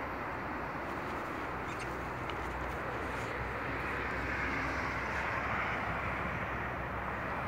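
Steady outdoor background noise, an even hiss-like rumble that swells a little about halfway through, with a couple of faint ticks near the start.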